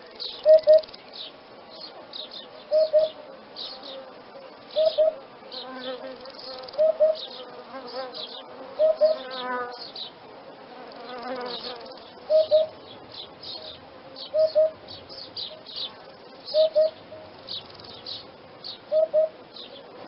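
Hoopoe calling its soft two-note "hoop-hoop", the pair repeated about every two seconds, with rapid high chirping behind it.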